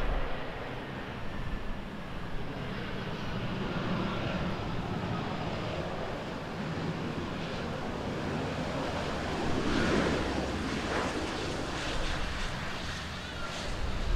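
Jet engines of a Japan Airlines Airbus A350-900, twin Rolls-Royce Trent XWB turbofans, running as the airliner rolls along the runway: a steady rushing rumble, with a faint whine that falls in pitch over the first few seconds.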